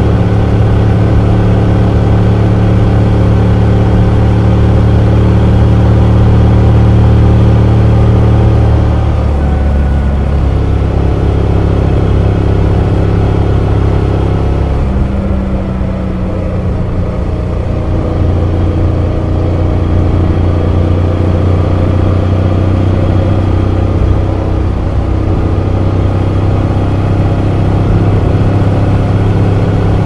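Honda X-ADV 750's parallel-twin engine with a stock muffler and an Akrapovic header, heard onboard while riding: a steady cruising drone with wind rush. Engine speed drops around nine seconds and again around fifteen seconds, then holds steady again from about eighteen seconds.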